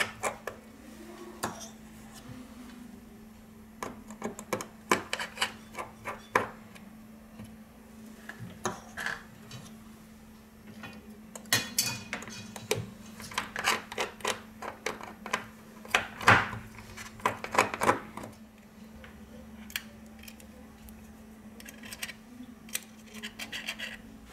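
Small metal tools, a precision screwdriver and tweezers, clicking, tapping and scraping against an iPhone 6's aluminium housing and internal brackets as screws are removed, in irregular clusters of light taps, the loudest about two-thirds of the way through. A steady low hum runs underneath.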